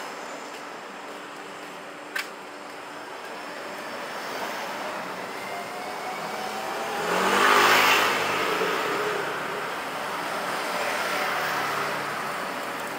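Street traffic noise, with a motor vehicle passing close by about seven seconds in, its engine rising then falling in pitch as it goes past. A short sharp click about two seconds in.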